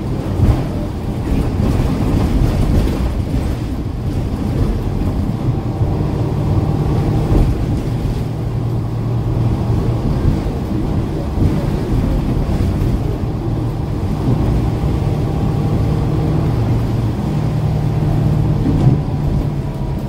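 Cummins ISL9 diesel engine of a New Flyer Xcelsior XD40 transit bus idling steadily, a low hum with a faint higher whine above it, with no HVAC running. The whine rises a little near the end.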